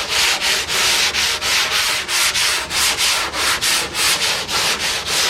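File board with abrasive paper being pushed by hand over the bare steel of a car's guard, a steady run of scratchy back-and-forth sanding strokes, about three a second. This is the final smoothing of the metal after filing and planishing.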